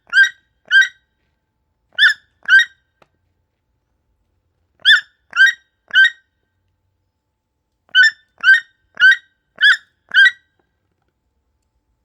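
Toucan calling: short, repeated calls in runs of two to five, about two a second, separated by pauses of a second or two.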